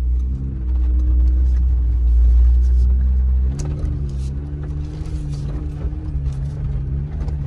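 Jeep Wrangler engine running steadily as it crawls along a muddy trail, heard from inside the cab as a deep, even rumble. About three and a half seconds in, the engine note changes and the low rumble eases.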